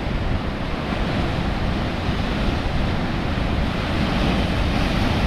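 Heavy sea surf rushing and breaking in strong wind, with the wind buffeting the microphone: a steady, dense rumble and hiss.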